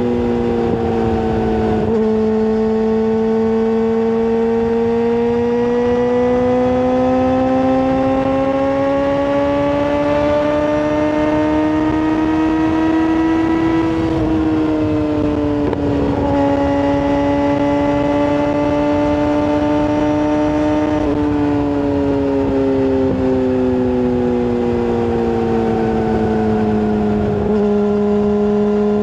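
Yamaha R6 sport bike engine with a full exhaust, running steadily at high revs. Its pitch climbs slowly, falls back about halfway through, and drops again near the end.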